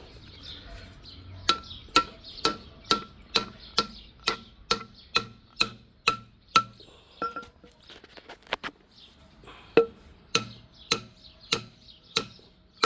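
Mallet blows at about two a second, driving bolt sleeves into the polyurethane-style bushings of a 4-link suspension bar, each hit with a short ringing note. The blows pause briefly about seven seconds in, then pick up again.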